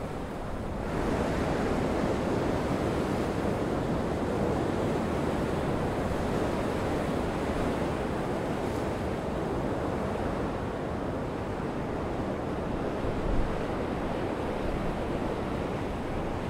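Heavy surf breaking and washing over rocks in a gale, a steady roar of rough sea with wind buffeting the microphone and one short low gust thump toward the end.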